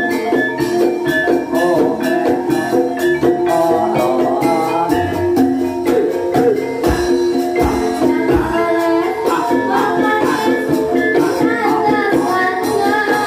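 Live Banyumasan gamelan music for an ebeg hobby-horse dance, with steady drumming and a voice singing over it. A few deep drum thumps come in about midway.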